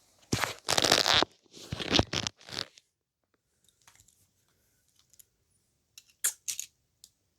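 Handling noise: a few loud scraping, rustling bursts in the first three seconds, then quiet, then a few short clicks about six seconds in.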